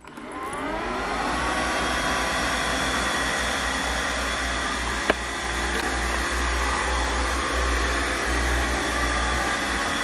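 Budget robotic vacuum cleaner starting up at the press of its button: its motor whine rises in pitch over the first second, then runs steadily. A single sharp click about five seconds in.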